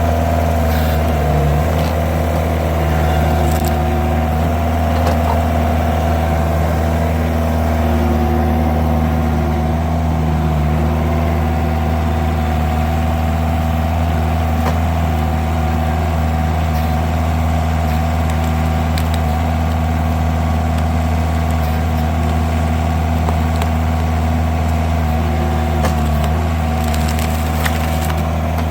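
Mini skid steer engine running steadily under load while a hydraulic threaded-cone log splitter bores into a log, with wood cracking and splintering a few times near the start and near the end.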